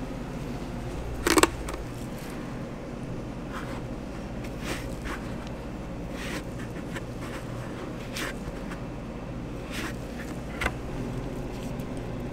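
Ice cream scoop scraping through hard chocolate ice cream in a tub, in several short scrapes, over a steady low hum. A louder short clatter comes about a second in.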